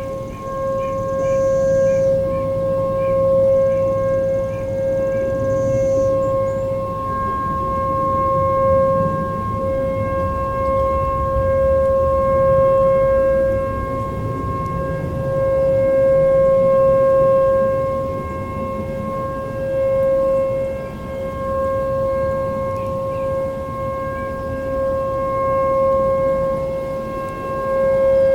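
Sentry 14V-B outdoor warning siren sounding a steady, single-pitched tone, heard from about half a mile away. Its loudness swells and fades every few seconds as the rotating siren head sweeps around.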